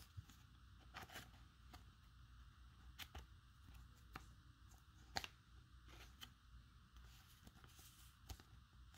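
Faint crinkling and rustling of a thin plastic card sleeve as a trading card is slid into it, with scattered soft clicks. The loudest crackle comes about five seconds in.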